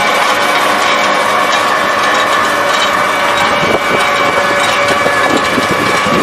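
Wood pellet production machinery running: a loud, steady industrial clatter with a constant high whine.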